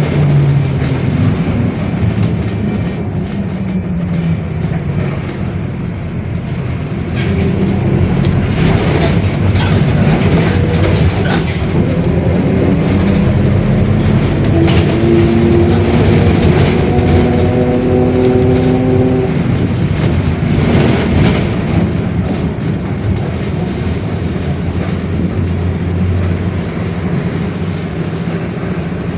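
Mercedes-Benz OF-1721 Bluetec 5 bus under way, heard from inside: diesel engine running under load with a differential growl. A whine rises in pitch from about twelve to nineteen seconds in as the bus gathers speed. Several knocks and rattles come in the middle.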